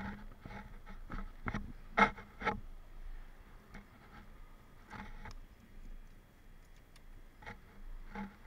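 Irregular knocks, clicks and rubbing as gloved hands handle and lift off a motorcycle's seat, plastic and fabric knocking together; the loudest knock comes about two seconds in.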